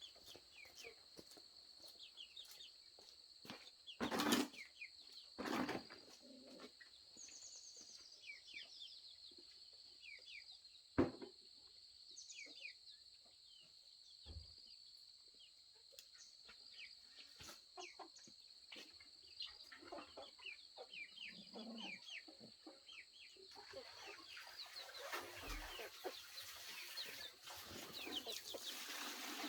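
Farmyard chickens: many quick, high, falling chirps like chicks cheeping, over a steady high whine. A few loud brief rustles or thumps come about four, six and eleven seconds in, and a rougher noise builds near the end.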